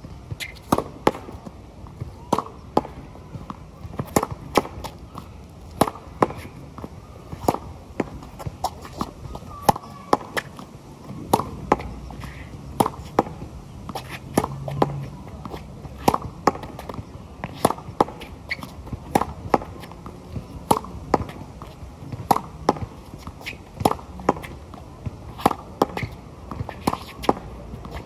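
Tennis ball rallied against a concrete practice wall: a steady run of sharp pops from racket strikes, the ball smacking the wall and bouncing on the court, coming every half second to second or so.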